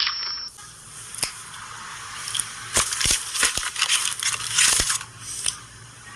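Crunching, crackling noise with many sharp clicks and a few dull knocks, like something being crushed or crumpled.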